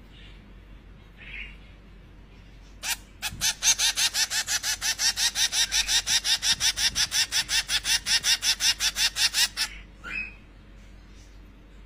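Zebra finch chick begging for food: a long rapid run of short, high, repeated calls, about six a second, for some seven seconds. A single chirp comes before it and another just after it.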